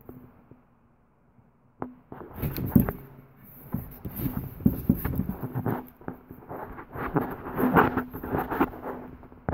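Handling noises from a propane fire bowl and its cardboard packing: irregular rustling, scraping and light knocks, starting about two seconds in with a sharp click.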